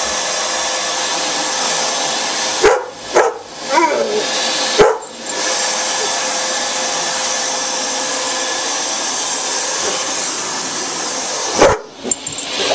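Vacuum cleaner running steadily, its noise dropping away sharply for a moment about three, five and twelve seconds in. Dogs give a few short barks, mostly around the first drops.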